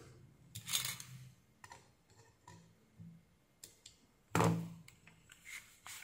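Faint handling sounds at a workbench: a few light clicks and soft rustles as multimeter test probes and a circuit board are handled. A brief louder breathy sound comes about four and a half seconds in.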